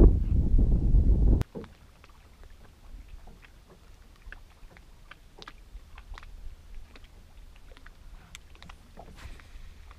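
Wind buffeting the microphone, loud, cutting off abruptly about a second and a half in. After that it is quiet, with a faint low rumble and scattered small ticks of water lapping against the side of a bass boat.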